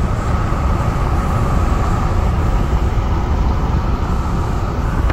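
Steady road and wind noise inside a moving car: a loud low rumble with a rushing hiss over it.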